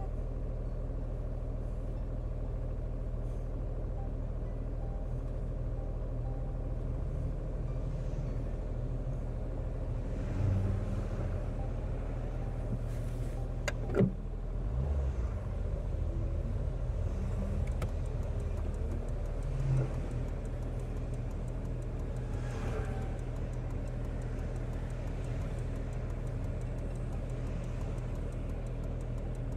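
Car driving along a road: a steady low drone of engine and tyre noise. There is a sharp click about fourteen seconds in and a few brief low thumps.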